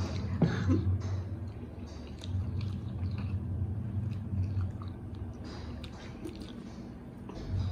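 Two people chewing and slurping soft instant noodles eaten by hand, with many small wet mouth clicks and smacks.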